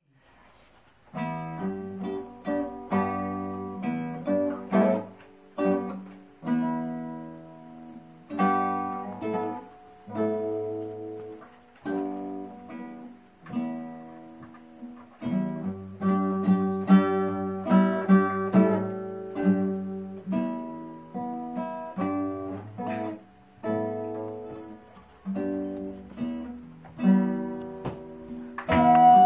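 Acoustic guitar music: plucked notes and strummed chords, each ringing and dying away, starting about a second in.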